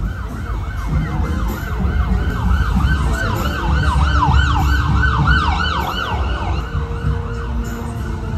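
Emergency vehicle siren in yelp mode, its pitch sweeping up and down rapidly, about three times a second, over a low rumble of traffic. The siren fades out near the end.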